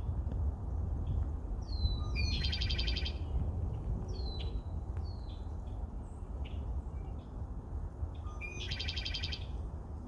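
Wild birds singing in the open: two trilled song phrases, about two seconds in and again near the end, with short down-slurred chip notes between them, over a steady low rumble.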